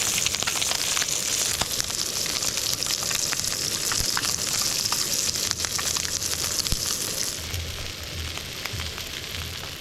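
Bream frying in butter in a pan: a steady sizzle with scattered crackles and pops. The sizzle drops off about seven seconds in.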